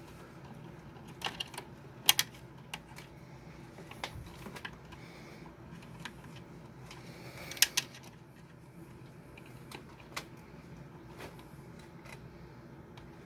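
Scattered light clicks and taps of small parts being handled while fitting and routing the heater's new element wire, with two sharper double clicks about two seconds and seven and a half seconds in.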